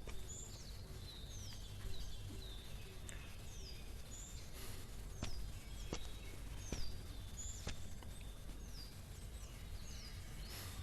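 Birds chirping in short, high, downward-slurred calls repeated about once a second, over faint steady background noise, with a few faint clicks.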